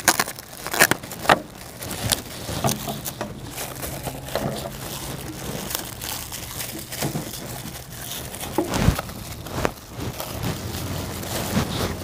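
Plastic cling film crinkling and crackling in irregular bursts as it is pulled from the roll, stretched over a bowl and smoothed down around the rim.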